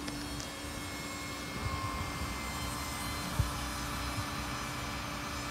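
Radio-controlled model jet's turbine engine running steadily: a continuous rushing noise with faint high whining tones, and wind rumbling on the microphone.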